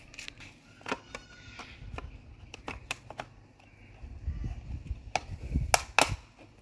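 Rigid white plastic lamp housing handled and turned over: a series of light plastic clicks and taps, with two sharper clicks close together near the end and a low rumble shortly before them.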